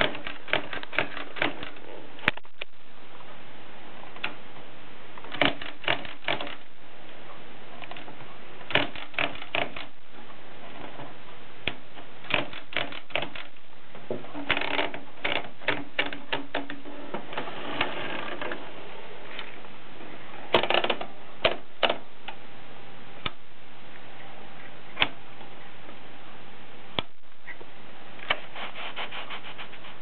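Olympia Traveller de Luxe manual portable typewriter being worked by hand at the carriage and platen: bursts of quick sharp clicks and ratcheting, with pauses between and a few single clicks.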